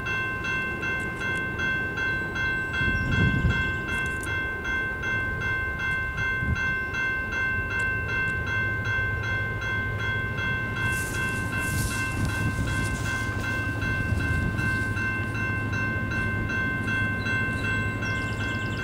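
Railway level-crossing warning bell ringing steadily, about three strikes a second: the crossing signals are active for an approaching train. Rain noise underneath, and a low hum comes in about eight seconds in.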